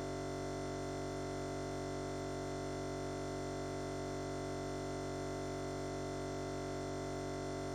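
A steady, unchanging hum made of many fixed tones at once, with no rhythm, beat or change in level.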